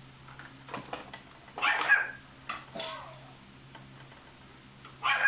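A dog barking a few short times, loudest about two seconds in and again near the end, over a steady low hum.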